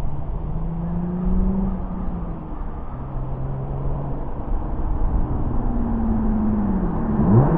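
Exhaust of a Lexus IS300's 2JZ inline-six, heard from the roadside as the car cruises toward it at light throttle. The engine note rises and falls gently, dips sharply and recovers near the end, and slowly grows louder as the car approaches.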